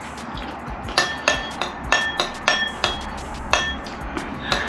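A metal spoon clinking against a ceramic bowl, about eight quick ringing clinks between one and three and a half seconds in.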